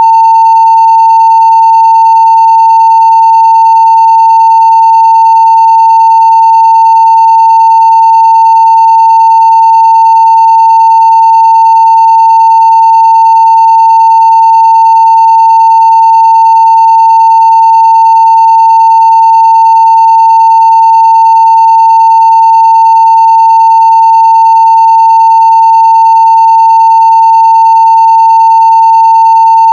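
A 900 Hz sine-wave test tone at full scale (0 dB), held steady and unbroken at one pitch, very loud.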